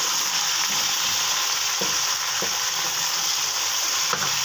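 Freshly added raw chicken pieces frying in hot oil in a metal karahi: a steady sizzling hiss. A wooden spatula stirs them, scraping the pan a few times.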